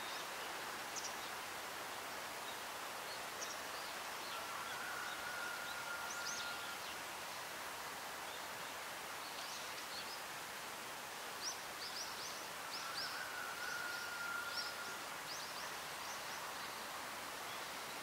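Steady outdoor background hiss with scattered short, high chirps from small birds calling in the distance, denser in the second half. Twice a faint, steady high whistle is held for about two seconds.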